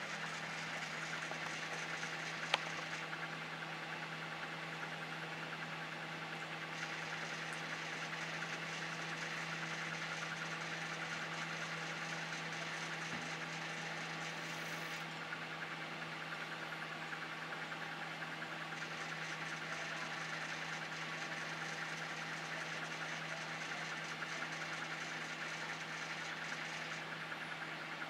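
Saturn microwave oven running on high power during a heating test: a steady hum with fan noise, and one short click about two and a half seconds in.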